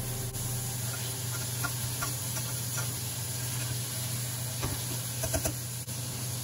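Fish chunks sizzling in oil in a stainless steel frying pan while a slotted metal spatula turns them, with light scrapes and clinks of the spatula against the pan, the loudest few about five seconds in, over a steady low hum.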